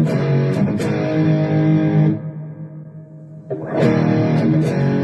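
Electric guitar played through the Donner Arena2000 multi-effects pedal with the lead boost engaged, giving a distorted, sustained tone. A chord rings and dies away about two seconds in, and a new chord is struck about a second and a half later.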